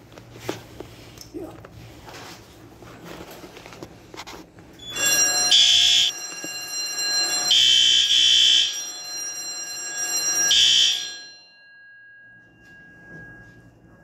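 Fire alarm sounder on a Simplex 4004R releasing-panel training board going off about five seconds in. It gives a steady shrill tone with three louder blasts, then cuts off after about six seconds, leaving a fainter steady tone.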